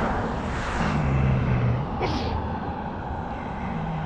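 Road traffic noise: a passing car's tyre and engine sound fading off, with a low engine hum from traffic about a second in and again near the end.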